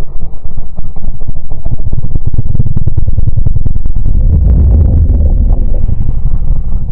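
Deep rumbling horror sound effect: a loud low drone shot through with rapid crackling flutter.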